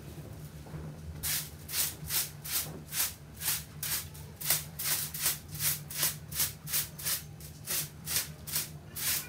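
Short-handled broom swishing across the floor in quick, even strokes, about two to three a second, starting about a second in. A steady low hum runs underneath.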